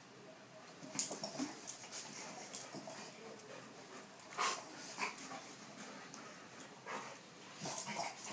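Dogs play-fighting, with several short, sudden bursts of dog vocalizing: about a second in, near the middle and near the end.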